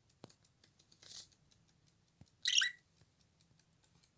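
Budgerigar giving one short, harsh chirp about two and a half seconds in, amid a few faint ticks.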